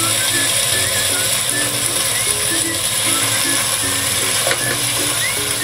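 Pork spareribs searing in hot oil in a pot over a high flame, sizzling steadily, with a knock of the tongs against the meat or pot about four and a half seconds in.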